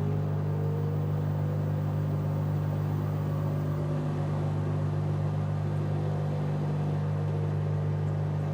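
LG washing machine running: a steady low hum with faint whines that rise in pitch now and then.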